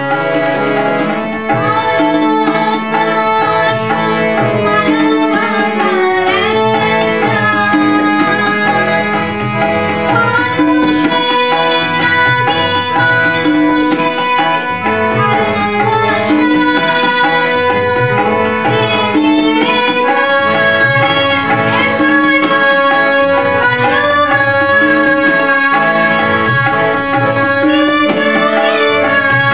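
Harmonium playing sustained chords and melody under a woman's singing voice, with a tabla keeping a steady rhythm beneath.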